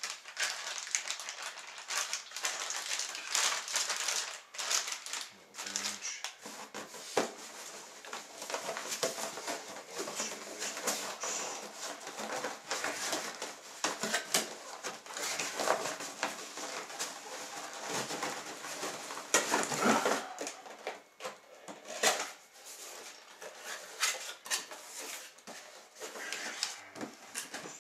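Packaging being handled: a plastic bag crinkling and cardboard box inserts rustling and knocking as they are pressed and lifted, in a continuous run of crackles and small knocks.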